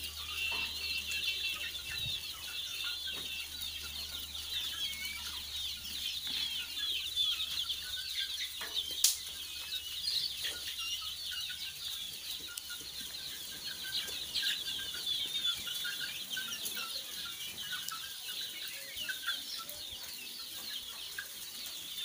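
A large flock of young chickens cheeping and peeping all at once, many short high calls overlapping without a break. A single sharp click stands out about nine seconds in.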